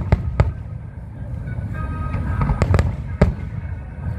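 Fireworks going off in a show, about five sharp bangs over a deep continuous rumble, with music playing alongside.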